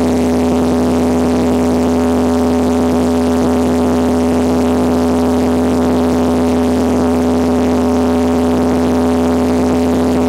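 Cessna 172 floatplane's piston engine and propeller held at full power for the takeoff run, a loud steady drone heard from inside the cabin, with the rush of water under the floats.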